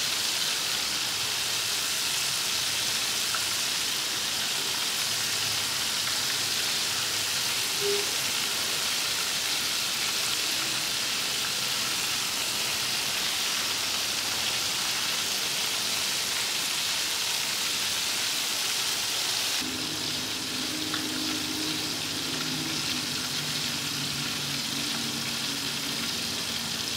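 Chicken strips deep-frying in hot oil in a turkey-fryer pot: a steady sizzle.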